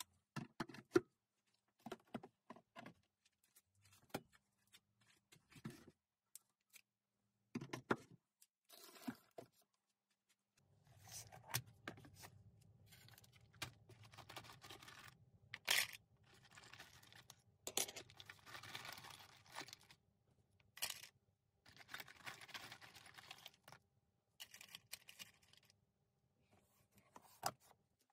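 Intermittent handling sounds of workshop gear: sharp clicks and knocks, with rustling and scraping as plastic organiser cases and boxes of screws and small hardware are moved and rummaged through. A low hum sits under the sounds from about ten seconds in.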